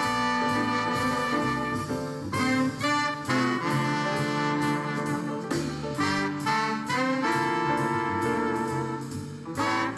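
Jazz music with brass and saxophone, playing at a steady beat.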